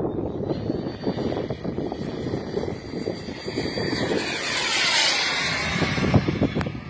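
Model jet airplane flying past: its engine whine swells to a peak about five seconds in, then drops steadily in pitch as it moves away. Wind buffets the microphone throughout.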